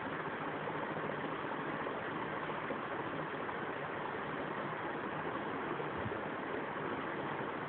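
Steady, even background noise: a constant hiss with a faint low hum, no distinct events.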